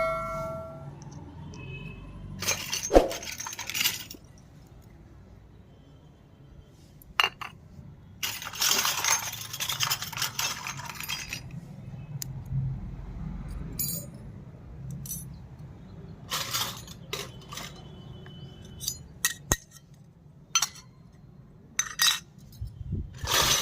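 Small hard toy kitchen pieces being handled: scattered light clinks and taps as they are picked up and set down, with a few longer bursts of packaging rustle.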